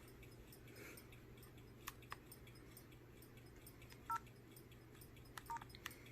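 LG Shine CU720 phone giving short two-tone key beeps as its buttons are pressed, one about four seconds in and a couple more near the end, among faint clicks; otherwise near silence.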